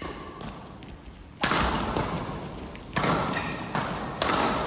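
A rally of sharp hits, three strikes about a second and a quarter apart, each ringing on in an echoing hall.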